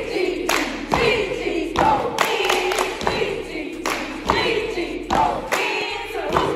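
Group of cheerleaders chanting a cheer together, broken by sharp claps or stomps every half second to second.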